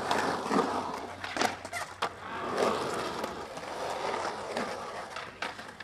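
Skateboard wheels rolling on the concrete floor of a drained swimming pool, with a few sharp clacks of the board.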